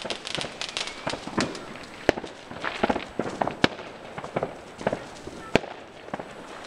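Fireworks going off: many bangs and crackles at irregular intervals, with a few louder, sharper bangs among them.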